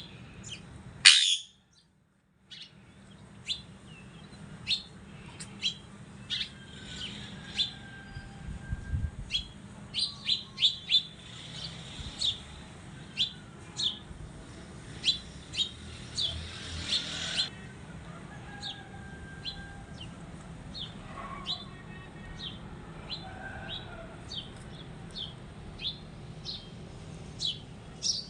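A pet parrot giving short, sharp high chirps over and over, roughly one a second, with one louder squawk about a second in.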